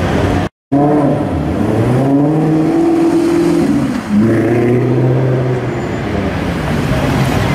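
Maserati GranTurismo V8 accelerating away, its engine note climbing, dipping sharply at a gearchange about four seconds in, then climbing again before fading into the street noise.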